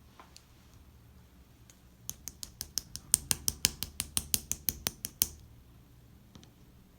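Pink clear slime being pressed and poked, giving a quick run of sharp clicking pops, about five a second, for roughly three seconds.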